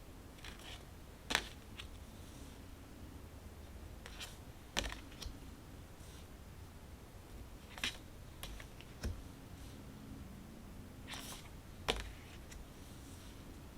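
Tarot cards being handled and laid down one at a time: a crisp card snap roughly every three to four seconds, with lighter ticks of card edges between.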